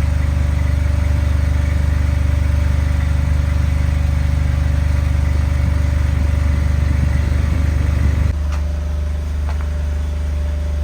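Electric water pump running with a steady low hum while it pumps water up into a poly storage tank. About eight seconds in the hum changes abruptly and gets a little quieter, followed by a couple of light clicks.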